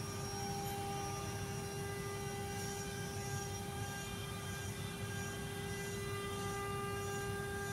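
CNC router running with a steady machine hum that holds one constant pitch, over a low rumble. From about a third of the way in, faint high chirps repeat roughly every half second.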